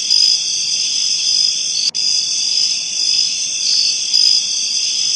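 Crickets chirping in a dense, steady chorus, a night-time ambience with a brief dropout about two seconds in.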